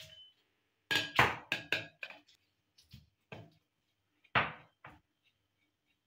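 A clear fluted plate and a silicone spatula knocking against a glass mixing bowl as flour is tipped and scraped into it: irregular sharp knocks, a quick cluster about a second in and the loudest about four and a half seconds in.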